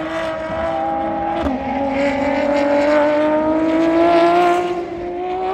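Ferrari race car engine accelerating hard. It shifts up about a second and a half in, dropping the pitch, then climbs steadily in pitch as the car pulls through the gear.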